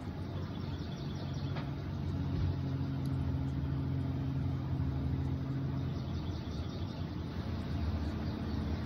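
Steady low rumbling background noise, with a faint low hum through the middle few seconds.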